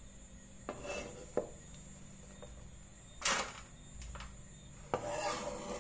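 A chef's knife scraping chopped onion, garlic and seasonings across a plastic cutting board onto a metal baking tray. There are a couple of light taps in the first second or so, one louder scrape about three seconds in, and a longer scrape near the end.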